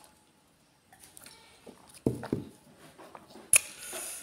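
Faint, broken sobbing breaths from a crying woman. About three and a half seconds in comes a sharp knock, then a rustle as the phone is moved.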